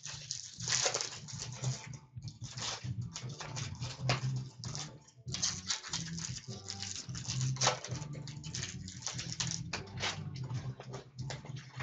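Trading card pack wrappers being torn open and crinkled, with cards rustling and sliding as they are handled, in an irregular run of short crackles and scrapes over a steady low hum.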